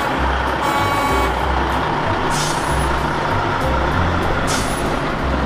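Heavy wrecker tow truck's diesel engine running as the truck drives past, with two short hisses about two and four and a half seconds in.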